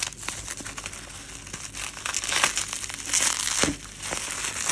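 Plastic packaging and bubble wrap crinkling and crackling as hands pull and crumple it open, growing louder from about two seconds in.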